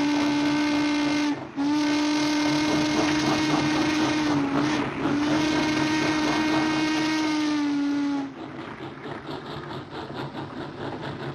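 Steam locomotive whistle blowing one long, steady note, broken briefly about a second and a half in and wavering once near the middle, then cutting off about eight seconds in. After that the departing train runs on more quietly with a light rhythmic chuffing.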